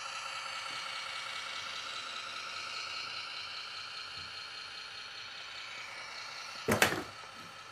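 Electric motor and gearbox of a Tamiya King Hauler radio-controlled truck whining steadily as it drives across a wooden floor. A brief, loud clatter comes near the end.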